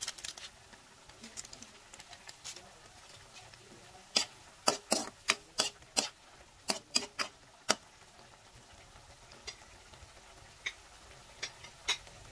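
Metal spatula knocking and scraping against a metal wok while stirring a vegetable sauce: a quick run of about a dozen sharp clinks from about four seconds in, then a few scattered ones near the end.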